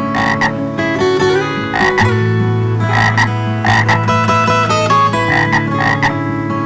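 Short, sharp animal calls, often in pairs, repeating every second or two over steady background music with guitar.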